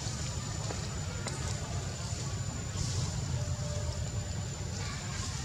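Steady outdoor background noise: a low rumble with a thin, steady high-pitched whine above it and a few faint clicks.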